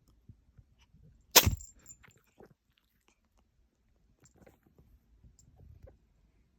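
Munchkin kitten sneezing once, a short sharp burst about a second and a half in, with faint small clicks and rustles around it.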